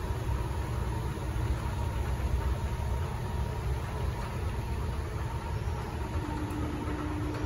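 Escalator running: a steady mechanical rumble and hum from the drive and moving steps, with a faint steady tone over it that grows a little stronger near the end.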